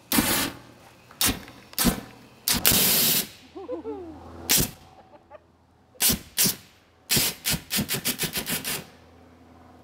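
Propane poofer firing short blasts of flame, each a sudden burst of gas and fire. Several single blasts come first, with a longer one about three seconds in, then a rapid string of about a dozen quick bursts from about seven seconds in.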